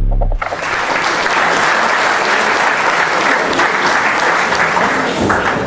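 A low hum cuts off in the first half-second, then an audience applauding steadily.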